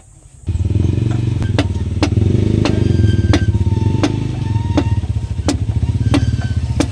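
An engine starts up suddenly about half a second in and runs steadily, with sharp clicks or knocks on top at uneven spacing of roughly every half second to a second.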